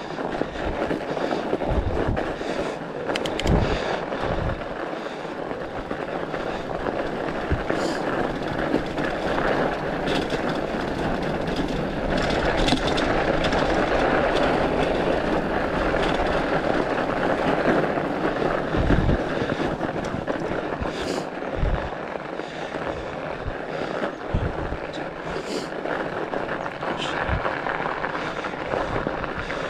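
Steady rushing noise of a fat bike riding a packed-snow trail: tyres on snow and wind on the microphone, with scattered low thumps and a few small clicks.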